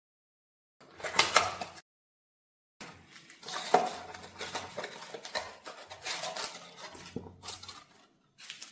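Cardboard packaging of a CO2 bubble counter being opened and its contents slid out: rustling of cardboard and a plastic sleeve in short bursts, with a few sharp knocks and clicks.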